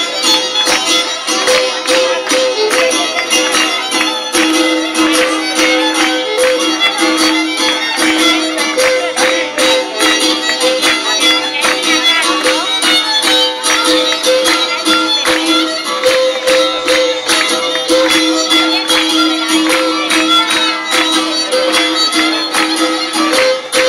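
Traditional Greek island dance music: a held, sustained melody over fast, steady percussion.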